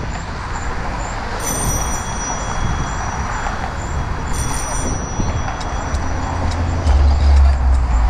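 Ride-along noise on a helmet-mounted GoPro microphone of a moving bicycle: a steady rumble of wind and traffic with the murmur of passing pedestrians. The low rumble swells louder about seven seconds in.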